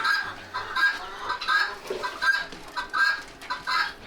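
Domestic fowl clucking: many short calls in quick succession.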